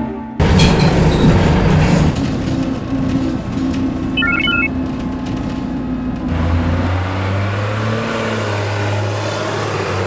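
Bus running, heard from inside the cabin: engine and road noise that starts abruptly about half a second in, with a few short high beeps about four seconds in and a steadier low drone in the second half.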